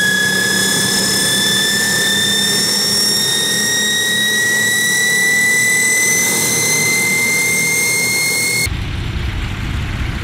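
Rolls-Royce Dart turboprop engine of a Fokker F27 spooling up on start, a loud high whine rising steadily in pitch as the propeller begins to turn. Near the end it cuts off abruptly to the low rumble of a First World War-type biplane's piston engine.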